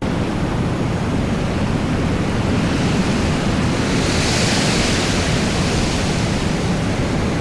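Steady road and wind noise from a moving car, a low rumble of tyres on asphalt under a constant rush. A higher hiss swells and fades around the middle.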